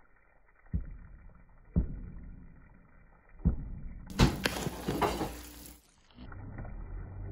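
A wooden spoon stirring and tossing a wet puffed-rice and noodle mixture (chatpate) in a plastic bowl. A few separate scrapes and knocks come first, then a quicker run of stirring strokes about four seconds in.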